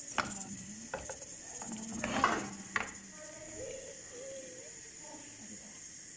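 Metal grill pan knocking and scraping against a gas stove's grate as it is shifted: a few sharp clanks, with the loudest scrape about two seconds in, over a steady high hiss.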